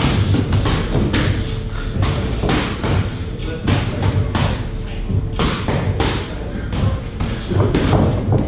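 Boxing sparring: a rapid, irregular run of thuds and slaps from gloved punches landing and feet moving on the ring canvas.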